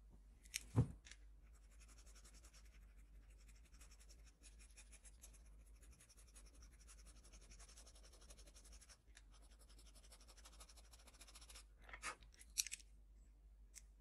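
Pencil scratching on paper for about ten seconds, with a low thump about a second in and a few sharp knocks near the end.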